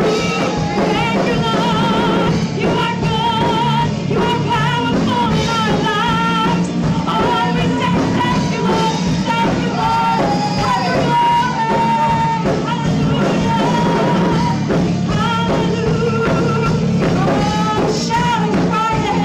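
Live worship band playing: a woman sings lead in long held notes over keyboard and electric guitar, with other women singing backing.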